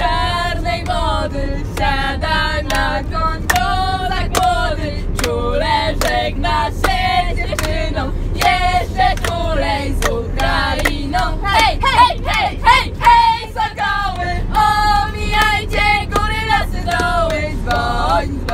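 A group of girls singing a song together and clapping along in time, inside a moving coach bus with its steady low engine and road rumble underneath.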